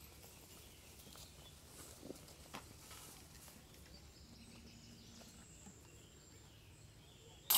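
Faint outdoor background hush with a few light ticks. Right at the end comes a sudden loud metallic jangle, typical of a disc striking the chains of a disc golf basket.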